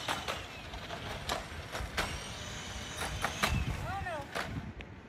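Small electric kick scooter riding over concrete paving, its motor giving a faint high whine that drifts up and down in pitch, with sharp clicks along the way. A short high call, like a child's voice, comes just under four seconds in.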